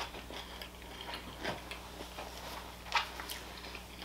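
A person chewing food with the mouth closed: soft wet mouth clicks and small crunches, with two sharper clicks about a second and a half in and about three seconds in.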